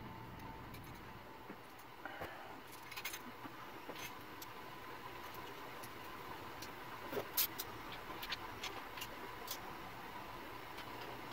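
Faint, scattered light metal clicks and taps as a small steel bracket and its clamp bolt are handled and fitted against the engine by hand, the loudest pair about seven seconds in. Under them runs a steady faint hum with a thin whine.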